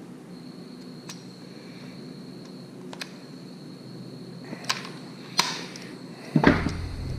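Sharp clicks and knocks of metal pen-kit parts being handled and pressed together, spaced a second or two apart, with the loudest knock about six and a half seconds in. A faint steady high whine and low hum run underneath.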